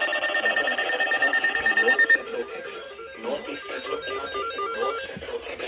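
An electronic alert tone: a dense, rapidly pulsing chord that cuts off about two seconds in. It is followed by a quick run of short electronic beeps stepping up and down like a little tune.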